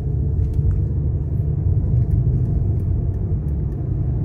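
Steady low rumble of a car driving at road speed, engine and tyre noise heard inside the cabin.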